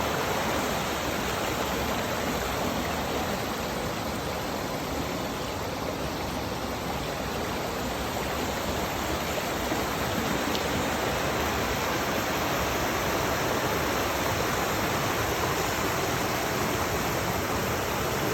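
Steady rushing of a mountain stream flowing over rocks at a crossing point.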